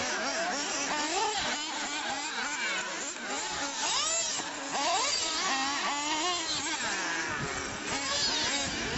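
Several radio-controlled off-road buggies racing, their small motors whining in many overlapping pitches that rise and fall as they speed up and slow down over the jumps.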